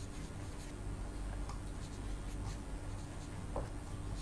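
Faint scratching of writing, over a steady low electrical hum.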